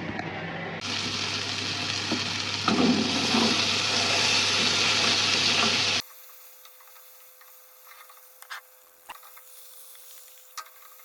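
Pelmeni sizzling as they fry in a pan, a steady hiss that cuts off abruptly about six seconds in. A few light clicks and knocks follow.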